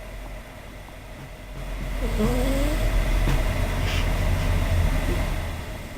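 A cat snoring: one long, low rumbling breath that swells about a second and a half in and fades near the end, with a short rising tone just after it begins.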